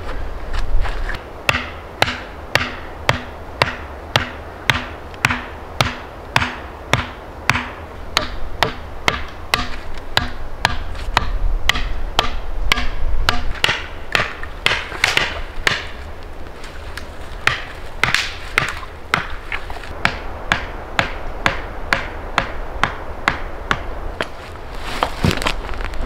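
Repeated sharp blows of a tool on wood, about three every two seconds and evenly spaced at first, then quicker and less regular in the second half.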